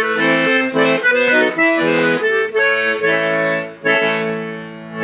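Fröhlich Bambi accordion playing a tune, melody notes over held chords. About four seconds in, a long chord is held and fades, and a short final chord sounds at the end.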